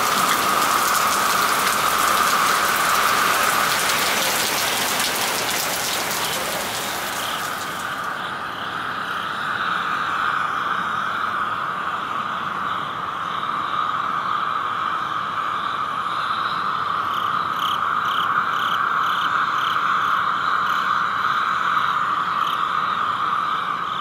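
Steady hiss of rain falling on a wet street. About eight seconds in it cuts abruptly to a duller steady rush with faint pulsing ticks.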